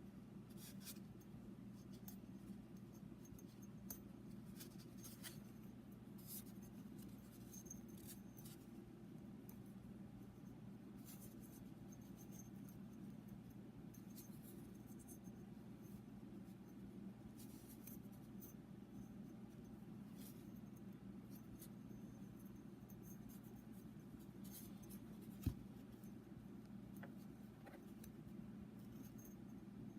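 Faint, scattered light scratching and clicking of a piston ring being turned in its groove around a new piston by hand, over a steady low hum, with one short low bump near the end.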